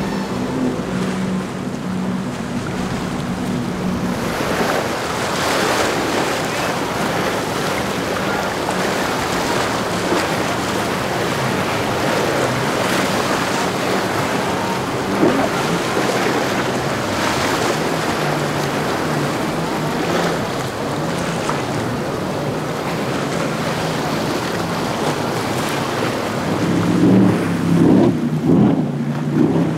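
Large powerboats running past at speed: a steady engine drone under the rush of spray and wake, with heavy wind noise on the microphone. Near the end a louder, surging engine note comes in from a high-performance racing powerboat.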